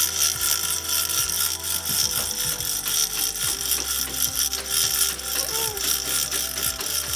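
Manual chain hoist hauled by its hand chain, the ratchet pawl clicking rapidly and the chain rattling as it lifts a tree stump out of the ground.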